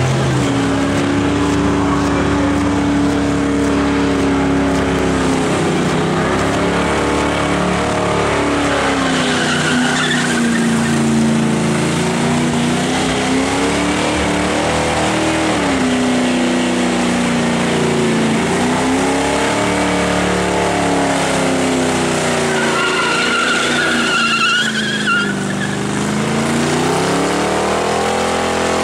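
White Ford ute's engine held at high revs through a burnout, its pitch rising and falling in slow waves as the rear tyres spin and smoke. Tyre squeal cuts through about ten seconds in and again later on.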